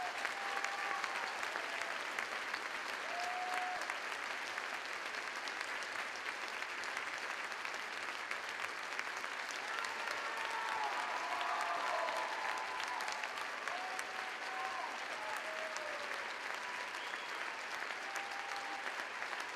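Audience applauding steadily, with a few short shouts from the crowd rising above the clapping.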